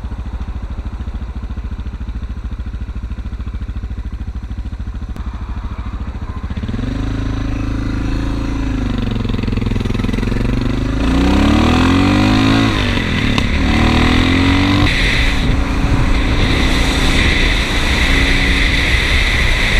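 Motorcycle engine running under way, heard from the rider's helmet: a steady rumble at first, then the revs rise and fall several times about a third of the way in as the bike speeds up. Wind rushing over the microphone grows louder past the middle.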